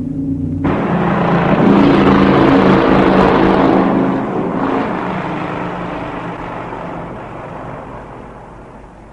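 A sustained low droning chord; a little under a second in, a loud rushing noise cuts in abruptly over it, swells, then fades slowly away.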